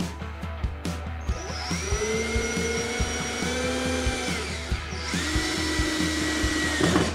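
Power drill driving screws into plywood station forms on a canoe strongback, in two runs: a whine that spins up about a second in and holds for some three seconds, then a second shorter run about five seconds in that stops just before the end. Background music with a steady beat plays underneath.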